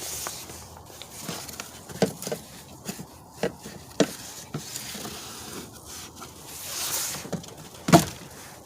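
Hand work on a car's under-hood plastic parts and wiring harness: scattered sharp plastic clicks and knocks, with a rustling scrape about seven seconds in and the loudest knock just before the end.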